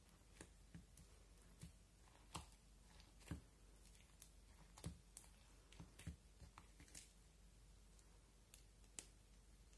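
Faint, irregular clicks and pops from clear slime filled with hard coloured flakes as fingers poke and press it in a plastic tub.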